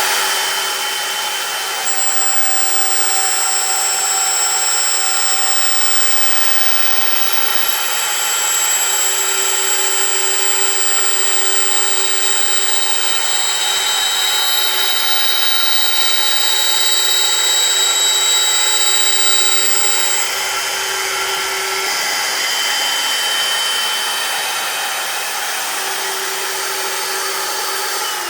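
Router motor running at speed in a flattening and milling jig, a steady high whine over a rushing noise; right at the end it is switched off and the whine starts to fall in pitch as it spins down.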